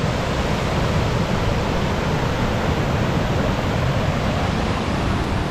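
Ribbon Creek's fast spring snowmelt flow rushing over rocks, a steady even roar of moving water.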